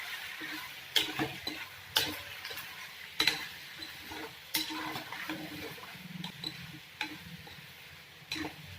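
Spoon stirring pasta in a hot oiled pan, knocking and scraping against the pan about once a second over a faint sizzle.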